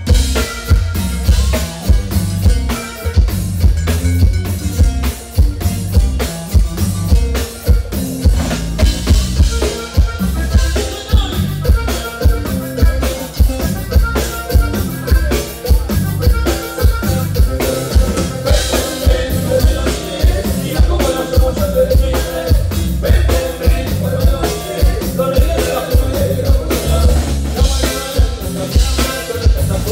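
Live cumbia band playing a song at a steady dance beat: button accordion, electric guitars, bass and drum kit.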